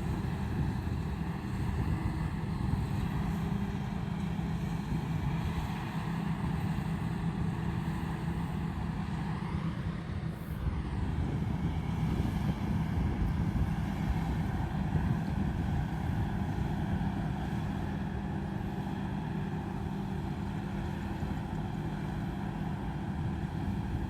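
Combine harvester's diesel engine and threshing machinery running steadily, with a brief shift in pitch about ten seconds in.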